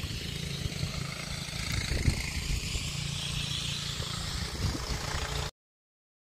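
Wind buffeting the microphone over a steady low motor hum; the sound cuts off suddenly about five and a half seconds in.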